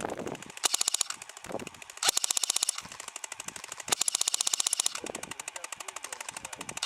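Airsoft guns firing full-auto: rapid trains of sharp cracks, with three louder bursts about a second and a half apart over quieter, steadier fire.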